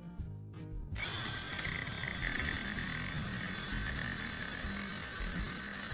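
Small electric drill running steadily as it bores into a plastic charger case to widen its USB slot, starting about a second in.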